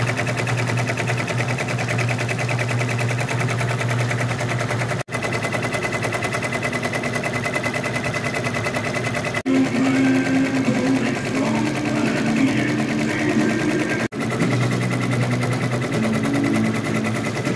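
Sewing machine stitching embroidery, its needle running in a fast, even rhythm. The sound breaks off sharply three times and picks straight up again.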